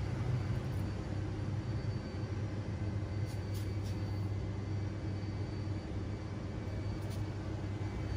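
Steady low rumble of urban outdoor background noise, with a few faint ticks about three and a half seconds in and again near the end.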